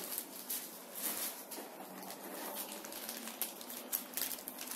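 Faint crinkling and rustling of a plastic bag around a part being handled, with scattered small clicks.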